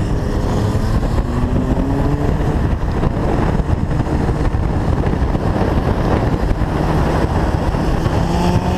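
Heavy wind and road rush from a vehicle moving at speed, with an engine note that climbs slowly and steadily in pitch as it accelerates.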